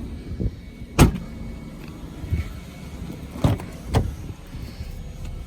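Five sharp knocks, the second, about a second in, the loudest, over a low steady rumble.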